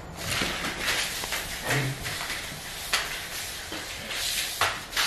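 Rustling and scuffling of cats playing with a wand toy on a rug, with a few sharp taps.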